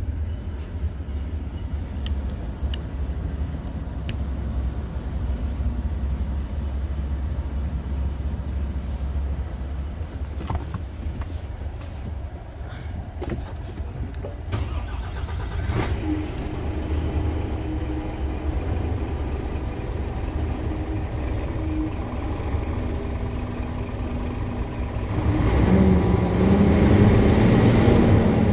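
Scania P truck's diesel engine idling steadily in neutral, heard from inside the cab, with a few light clicks around the middle. Near the end the engine is revved up, getting louder with its pitch rising and holding high.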